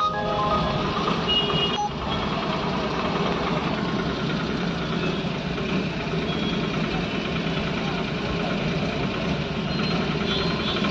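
Road traffic in slow, congested city traffic: engines running steadily in a continuous hum. A few short beeping tones sound in the first two seconds and again near the end.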